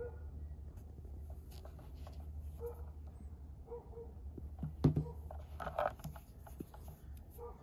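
Handling noise from a scooter charger's cable and plug being picked up and moved over a doormat: faint rustling, a sharp knock about five seconds in and a brief scuffle just after, over a steady low rumble.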